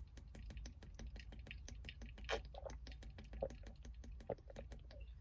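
A person gulping down cold water, heard as a quick run of faint wet clicks and glugs, with a few stronger gulps in the second half.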